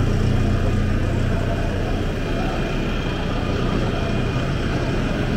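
Steady background noise of an exhibition hall: a constant low rumble and hum with an even hiss over it, no distinct events.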